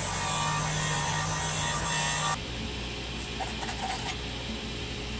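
Bench disc sander running with a small wooden disc pressed against its abrasive disc, giving a steady sanding hiss; about two seconds in the hiss stops suddenly, leaving a quieter, lower steady hum. The sanding disc is worn and cutting far too slowly.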